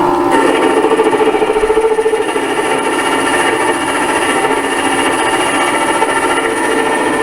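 CNC lathe spindle running with the tool taking a light shaving cut off the workpiece: a steady mechanical whine, fluttering rapidly for the first couple of seconds, then running evenly.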